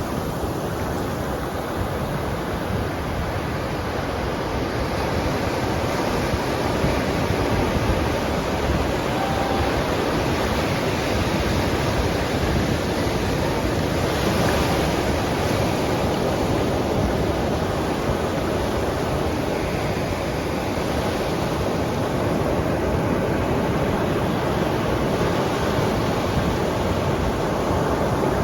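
Ocean surf: a continuous rushing wash of waves that swells and eases gently.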